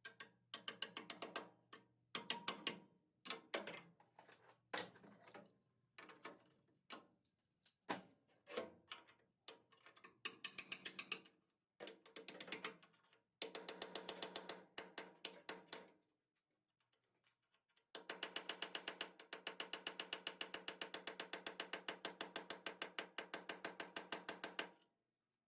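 Power drill drilling out spot welds in a sheet-steel floor pan, run in short bursts with a rapid chattering pulse, then a longer run of about seven seconds near the end.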